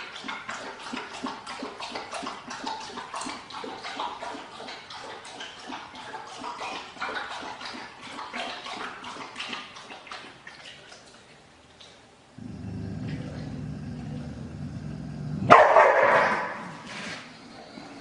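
A dog giving many short, quick cries for the first ten seconds or so. Then, after a cut, a steady low hum with one loud sudden sound about two-thirds of the way in.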